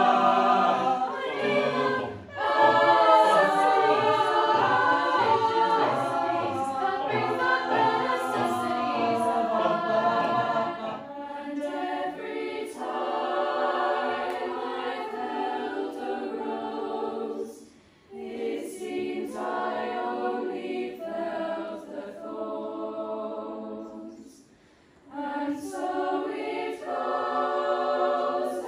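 A choir singing a cappella: first a mixed-voice chamber choir, then, from about eleven seconds in, a girls' choir of upper voices only, with two brief pauses.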